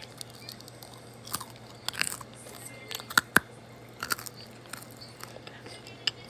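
Person biting and chewing french fries, a scatter of short crunches and wet mouth clicks. The loudest are two sharp clicks close together a little past three seconds in.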